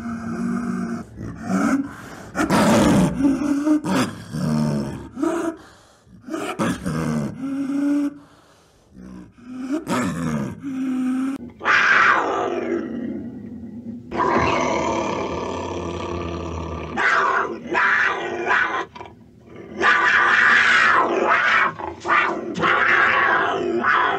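A snow leopard making a run of short, low calls. Then, about twelve seconds in, a cougar gives a loud falling cry followed by long, higher yowling calls.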